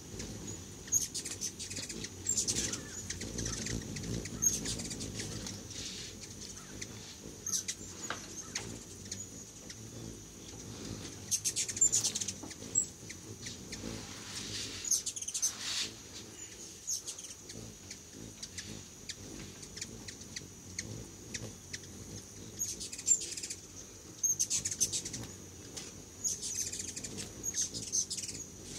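Hummingbirds at a feeder chittering in flurries of quick, high, squeaky chips, with the whir of their wings as they dart past.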